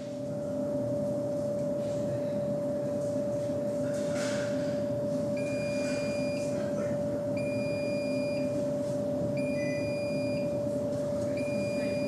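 A steady electrical-sounding hum with a constant mid-pitched tone. From about five seconds in, a high electronic beep sounds roughly every two seconds, each beep lasting about a second.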